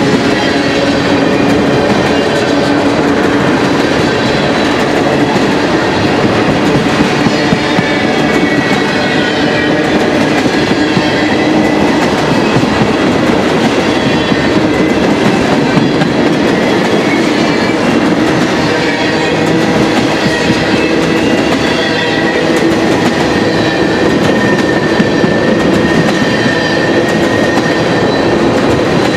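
Freight train of tank cars passing close by at speed: a loud, steady rolling rumble of steel wheels on rail. Wheel knocks come thick and fast, and faint thin steady tones run through it.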